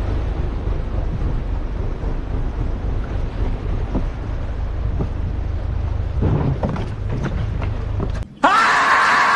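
Steady low rumble of the boat's surroundings. Near the end comes a loud man's cry of alarm as the boat's hull strikes a submerged reef and sticks.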